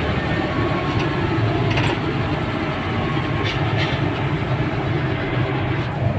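Steady engine and road rumble heard inside a truck cab on the move, with a few light rattles.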